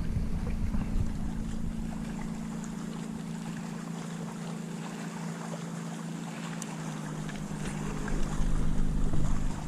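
A boat motor humming steadily, with wind buffeting the microphone in gusts at the start and again near the end.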